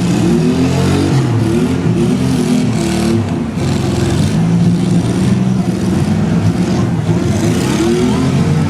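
Several demolition derby cars' engines running at once, revving so that overlapping pitches rise and fall throughout.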